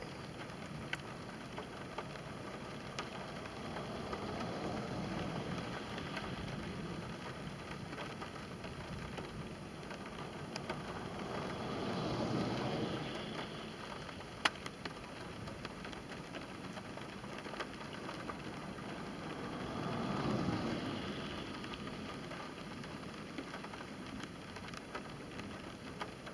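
Rain on a car, heard from inside: a steady patter with scattered sharp drop ticks, and three slow swells of rushing noise about 5, 12 and 20 seconds in.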